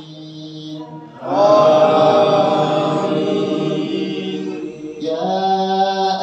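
An imam's voice chanting Quran recitation in long, held melodic phrases. A louder phrase starts about a second in, and another begins near the end after a short pause.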